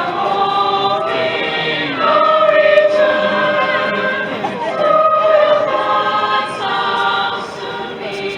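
A choir singing, several voices holding long notes together.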